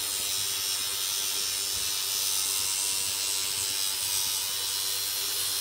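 Electric angle grinder running steadily, grinding an aluminium part with a constant high grinding noise over a steady motor hum.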